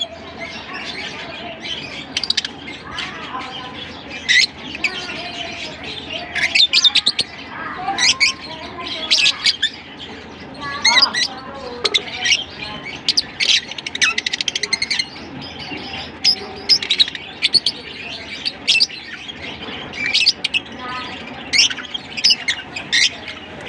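A flock of lovebirds chattering: many sharp, high chirps and squawks overlapping without a break.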